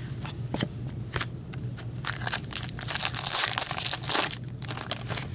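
A trading card pack wrapper being torn open and crinkled by gloved hands: scattered crinkles, then a denser tearing crackle lasting about two seconds in the middle.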